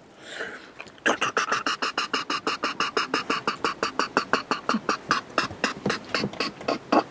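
A man imitating a helicopter's rotor with his mouth: a rapid, even chopping of about six or seven beats a second, starting about a second in.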